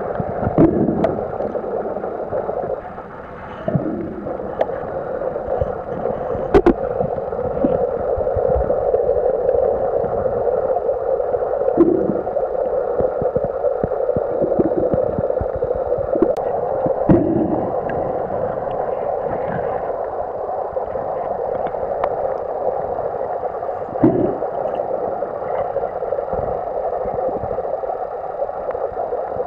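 Underwater ambience picked up by a submerged camera: a steady muffled drone, with a few short low gurgles and thumps scattered through it.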